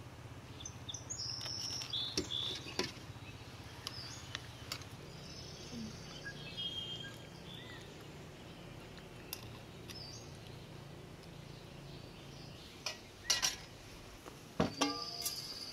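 Small birds chirping here and there, over a faint steady low hum, with a few sharp clicks near the end.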